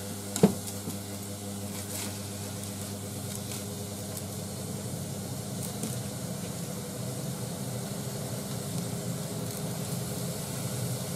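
Pork pieces frying in a saucepan, sizzling softly as they are stirred with chopsticks, over a steady low hum. A single sharp knock about half a second in, chopsticks striking the pan.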